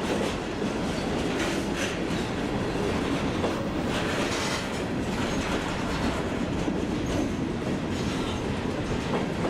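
Freight cars of a long train rolling past, their wheels clacking steadily over rail joints.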